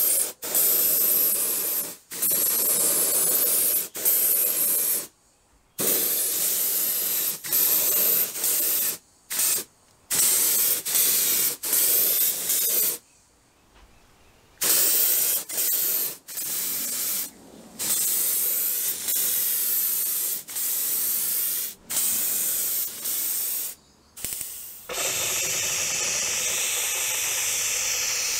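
Compressed-air gravity-feed spray gun spraying paint: a loud hiss in repeated passes of one to two seconds as the trigger is pulled and released, with short silent gaps between. Near the end it gives way to one unbroken, steady spray hiss.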